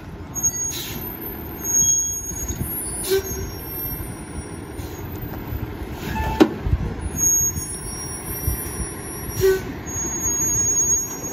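Heil PT1000 rear-loader garbage truck on a Freightliner chassis running steadily while bags are thrown into its rear hopper, with knocks and clatter and one sharp clank about six seconds in.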